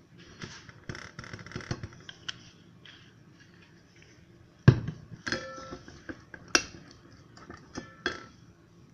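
Knocks and clinks of a glue bottle and utensils against a bowl while clear glue is poured in for slime. A loud knock about halfway through is followed by several short, ringing clinks.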